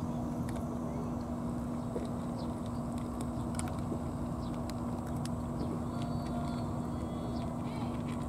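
Two cats crunching dry kibble from plastic bowls, short crisp clicks scattered throughout, over a steady low hum and rumble. A few brief bird chirps come in, around the middle and again near the end.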